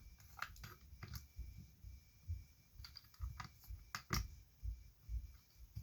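Scattered clicks and light knocks of a camera-battery charger and its plug being handled and plugged in, with soft low bumps in between.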